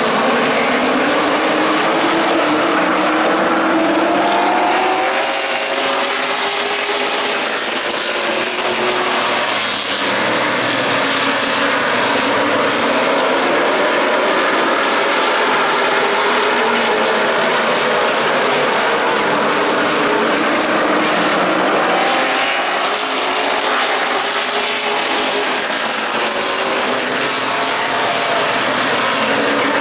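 A pack of stock race cars running at speed, several engines at once, their notes rising and falling as the cars pass and work through the turns.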